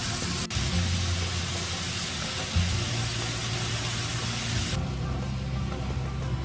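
A steady, loud hiss that cuts off sharply about five seconds in, over background music with a low bass line.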